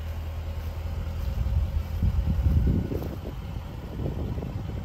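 Jaguar F-Type SVR's supercharged 5.0-litre V8 idling steadily, a low even hum, with a louder, rougher rumble swelling for about two seconds in the middle.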